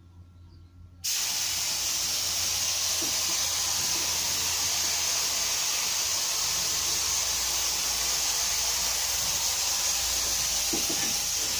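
Gravity-feed paint spray gun hissing steadily as it sprays primer, starting suddenly about a second in.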